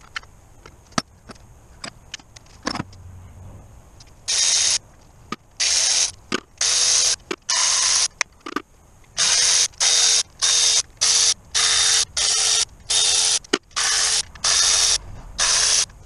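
A hand-held power tool runs in about fourteen short, loud bursts of about half a second each, with a steady whine through each one, as it spins out the valve cover bolts on a Caterpillar 3116 diesel. Light tool clicks and knocks come before the first burst, about four seconds in.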